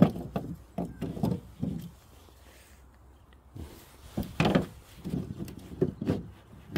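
Cut Lindera glauca (spicebush) branches knocking and clattering against each other and the table as they are shifted by hand. The knocks are irregular, with a quiet spell of about a second and a half in the middle.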